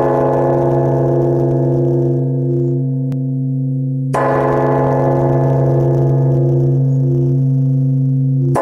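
Large bronze temple bell struck with a hanging wooden log striker, ringing with a deep hum and many overtones. It is struck again about four seconds in and once more right at the end.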